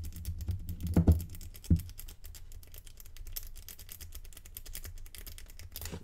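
A Sparrows worm rake scraping rapidly in and out of the keyway of a Facchinetti 8300 armoured shutter padlock, rattling over the pin stack as a fast stream of small metallic clicks. Two duller knocks come about one and nearly two seconds in.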